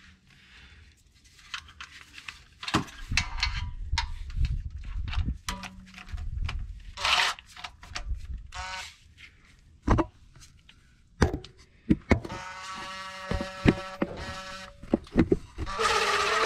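A hand ratchet clicking in bursts as the starter's mounting bolts are run in and snugged, mixed with sharp knocks of the tool against metal; a fast, even run of clicks comes about two-thirds of the way in.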